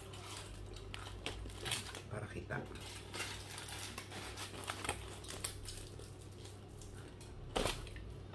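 Light handling of take-out food packaging and a plastic sauce cup: scattered small clicks, taps and rustles, with one louder knock near the end, over a steady low hum.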